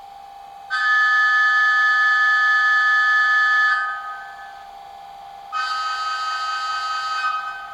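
Two blasts of a diesel locomotive horn from the sound decoder of an OO gauge model of Bulleid diesel 10202, played through its small speaker. The first is long, and the second is shorter, quieter and a little lower, over a steady whine that runs throughout.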